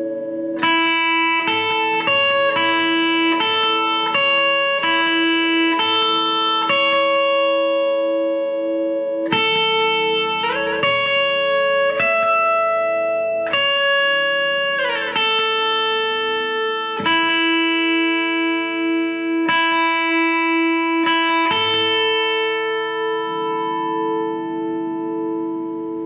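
Guitar playing a slow instrumental passage: chords and single notes ring out and change every second or two. It fades away near the end.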